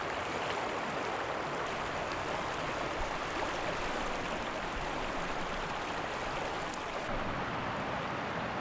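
Steady rush of a shallow river running over rocks, with the hiss thinning a little about seven seconds in.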